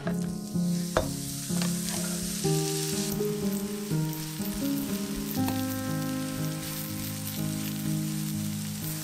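Sliced portobello mushrooms dropped into hot vegetable oil in a nonstick frying pan, with a few knocks as they land. They sizzle hardest for the first few seconds, then fry steadily over medium heat while being stirred with a spatula.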